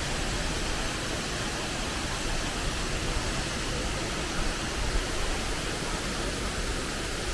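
Wachirathan Waterfall's falling water making a steady, even rushing noise, with no breaks or separate sounds.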